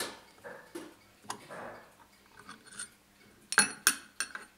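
Brass clock mainspring barrel being handled as its cap is prised off: light scraping and small sharp metallic clicks, the loudest pair about three and a half seconds in.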